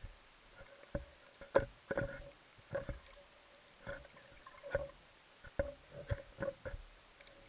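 Irregular muffled knocks and clicks heard underwater through a camera's waterproof housing, about a dozen at uneven spacing, over a faint steady hum.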